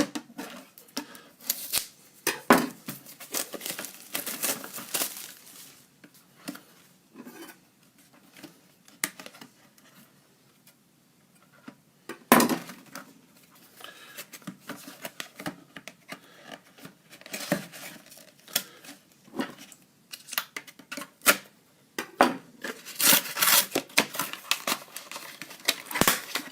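Sealed trading-card box being unwrapped and opened by hand: plastic wrap crinkling and tearing, with irregular clicks and knocks of the packaging and one sharp knock about halfway through.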